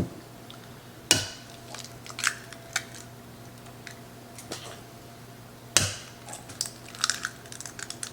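Kitchen clatter of eggs being handled and cracked into a mixing bowl: two sharp knocks, about a second in and again near six seconds, with lighter clicks between and a quick run of small taps and clinks near the end.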